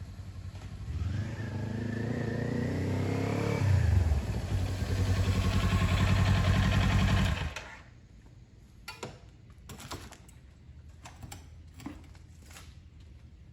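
Motorcycle engine running and revving up, its pitch rising over the first few seconds and then holding steady, before it cuts off suddenly about halfway through. A few faint clicks and knocks follow.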